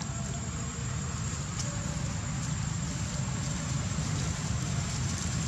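Steady low rumble of outdoor background noise with a thin, steady high whine above it; no monkey calls stand out.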